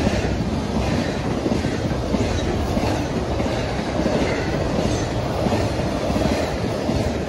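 Intermodal freight train cars loaded with double-stacked containers and trailers rolling past: a steady rumble and clatter of steel wheels on the rails.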